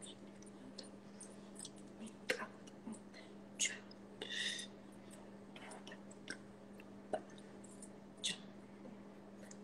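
Soft mouth noises from a person signing without voice: scattered lip smacks, clicks and a few short breathy puffs, over a steady low electrical hum.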